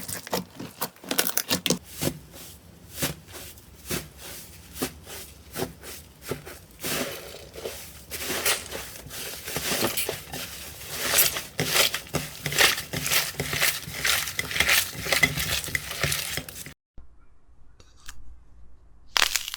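Slime being squeezed and worked by hand, giving off a dense run of crackles and small pops. The crackling stops suddenly about three-quarters of the way through, leaving only faint sound.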